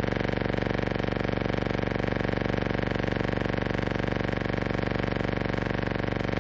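A loud, steady buzz with a fast, even pulse and many evenly spaced overtones, heard on the soundtrack of a silent film transfer rather than coming from the scene.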